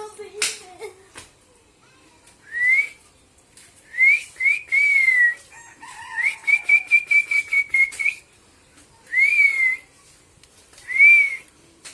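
Common myna (shalik) giving a string of short clear whistles, each rising then falling. A longer whistled phrase with a rapid run of clicks comes about six seconds in, and a single sharp click sounds just after the start.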